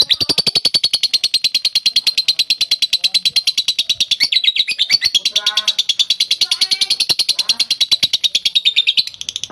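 Lovebird's ngekek: a long, fast chattering trill of sharp, high chirps at about fifteen a second, stopping about nine seconds in.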